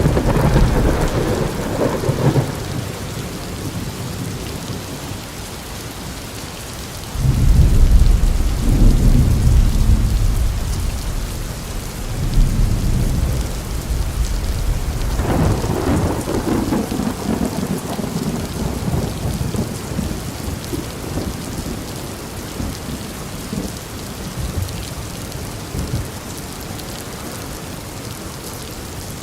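Steady rain with rolling thunder. A loud thunder rumble comes in suddenly about seven seconds in and rolls on for several seconds, with more rumbling between about twelve and seventeen seconds.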